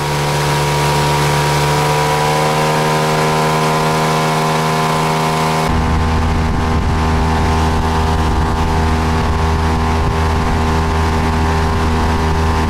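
Yamaha outboard motor running at speed under way, a steady engine note whose pitch climbs a little over the first couple of seconds. About six seconds in the sound changes abruptly, with a deeper low end.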